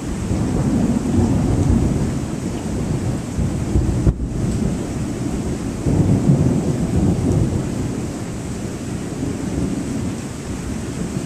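Rolling thunder rumbling over steady rain, swelling about a second in and again around six seconds.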